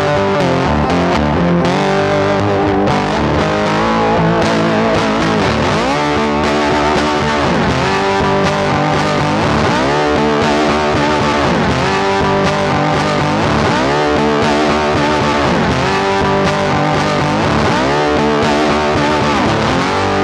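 Guitar-led background music at a steady level, with a sweep in pitch that dips and comes back up about every two seconds.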